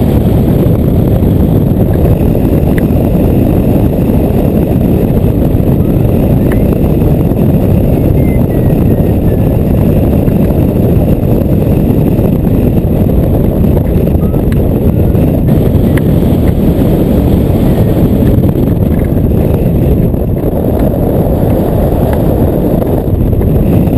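Wind rushing over the microphone of a camera mounted on a hang glider in flight: a loud, steady low rumble of buffeting air.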